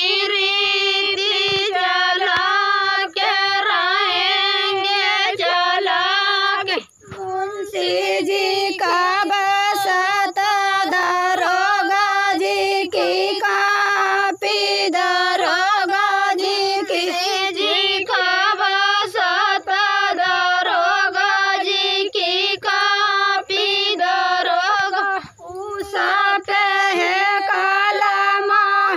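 High-pitched female voice singing a chohkra, a rural Hindi women's folk song of the kind sung at weddings. The singing is continuous, with two short breaks, about seven seconds in and again a few seconds before the end.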